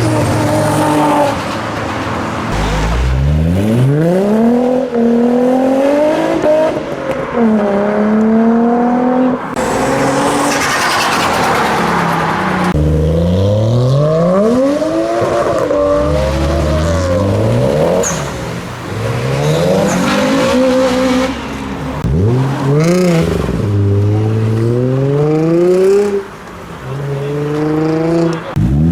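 Modified Japanese cars accelerating away one after another. Their engines rev up through the gears, and the pitch climbs and then drops at each gear change. There is a stretch of rushing noise about ten seconds in.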